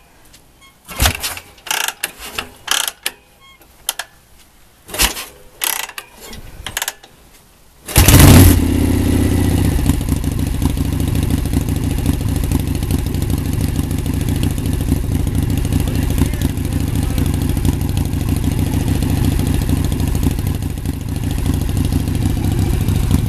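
Chopper motorcycle being kick-started: a few scattered knocks and clicks from the kick-starter strokes, then about eight seconds in the engine catches with a loud burst and settles into running steadily.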